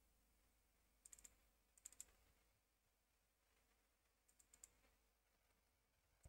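Faint computer mouse clicks in quick groups of double-clicks, about a second in, again at two seconds, and a few more after four seconds, over a very quiet room hum.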